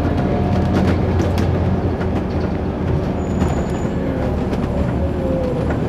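Inside a Scania OmniCity single-deck bus on the move: a steady low drone from the diesel engine and drivetrain, with frequent rattles and knocks from the body and fittings. A whine from the drivetrain falls in pitch near the end.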